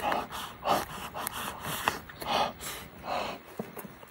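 A person eating: short puffs of breath out through the mouth, about two a second, while chewing a mouthful of food, with a few sharp clicks between them.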